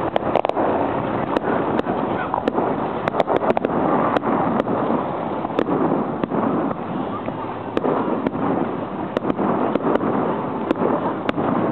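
Aerial firework shells bursting: a rapid, irregular series of sharp bangs and crackles, several a second at times, over a steady background din.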